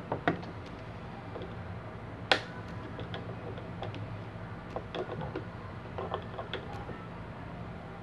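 Scattered plastic clicks and knocks as a table fan's blade hub is handled and screwed onto the motor shaft with a screwdriver, with one sharper knock about two seconds in and a run of small clicks later. Under it runs a steady low hum.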